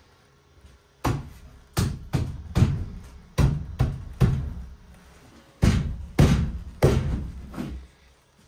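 A wooden window sill being knocked down into place: about a dozen heavy, solid thuds in three quick runs, each with a short ring.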